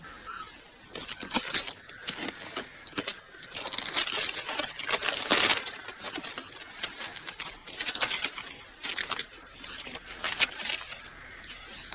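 A wrapped parcel being opened by hand: paper rustling, crinkling and tearing in irregular bursts, busiest about four to five seconds in.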